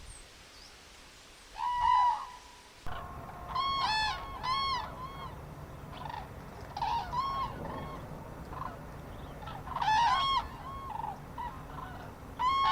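Several large waterfowl honking: short calls that rise and fall in pitch, coming in clusters and overlapping, starting about a second and a half in.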